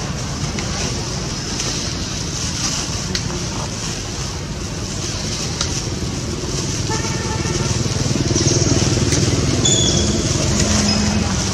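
Steady outdoor background rumble, like distant motor traffic, with a brief pitched call about seven seconds in and a couple of short high chirps near the end.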